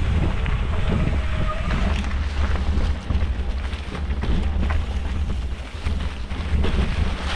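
Yeti SB115 mountain bike rolling over singletrack on Maxxis Minion DHR tyres, heard from a handlebar-mounted camera: a steady low rumble of tyres and wind on the microphone, with many quick rattles and knocks from the bike going over roots and rocks.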